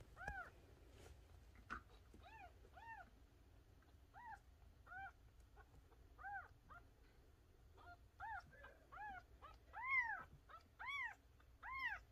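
A young kitten, about six weeks old, mewing repeatedly: about a dozen short, high mews, each rising then falling in pitch. The mews come louder and closer together near the end.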